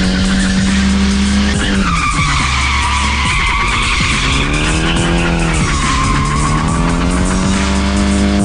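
A drift car's engine running hard at steady revs, dipping about two seconds in and climbing back near the end, while its tyres squeal through a long slide.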